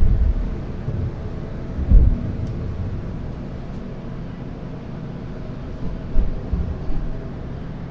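Wind buffeting a small camera microphone, low rumbling gusts that are loudest at the start and again about two seconds in, then settle into a steadier low rumble.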